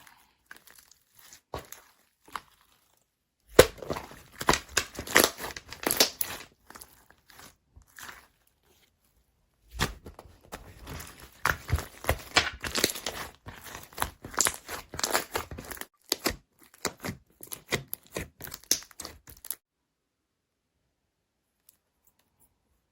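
Slime being squished and stretched by hand, giving dense runs of crackling and popping. The handling pauses briefly around the middle and stops a few seconds before the end.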